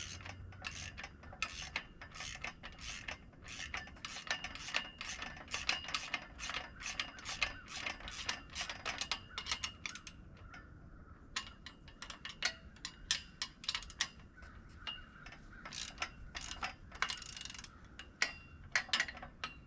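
Ratchet wrench clicking in quick runs as bolts are tightened, with a brief pause about halfway through.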